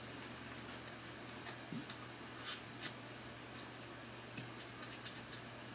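Faint, scattered clicks and taps of cardboard board-game terrain pieces being bent and slotted together by hand.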